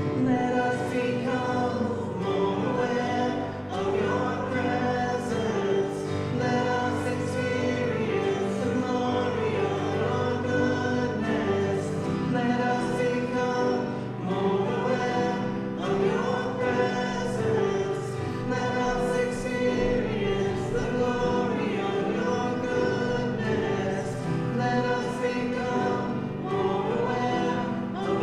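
Group of voices singing a hymn-like song with instrumental accompaniment, steady throughout.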